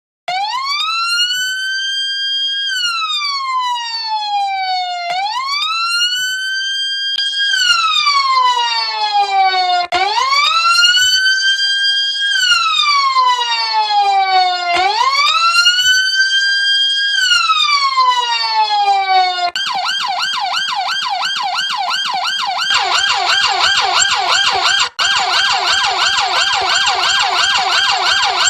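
Turkish ambulance siren sounding a slow wail that rises for about two and a half seconds, holds, then falls, repeating about every five seconds, with a second overlapping wail joining about seven seconds in. After about twenty seconds it switches to a fast yelp.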